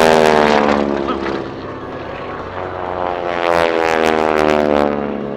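Propeller-driven aerobatic airplane engine flying past, its note sliding down in pitch as it passes. The engine comes loud again about three and a half seconds in with another falling pass.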